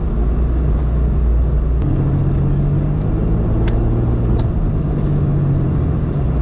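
Vehicle engine running under load while driving over sand, heard from inside the cab: a steady low drone whose pitch steps up about two seconds in. Three brief clicks or rattles cut through it partway along.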